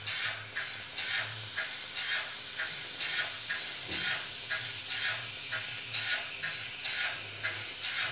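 Sound decoder of a Trix model 050 TA 23 steam tank locomotive playing steady steam-exhaust chuffs, a little over two a second, through its small loudspeaker as the model runs, with a low hum beneath.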